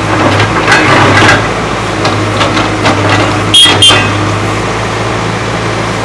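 Case 770 EX backhoe loader's diesel engine running steadily while the backhoe arm works, with scattered knocks from the digging gear and two sharp metallic clanks a little past halfway.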